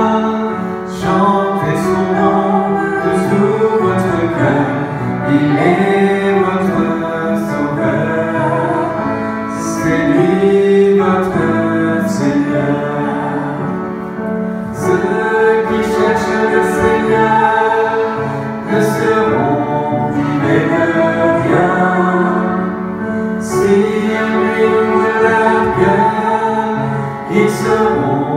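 Congregational worship hymn sung by male and female voices together, accompanied by piano and accordion.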